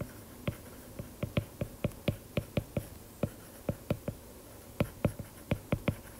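A stylus tapping and clicking on a tablet's glass screen while a word is handwritten: an irregular run of short, sharp taps, a few each second.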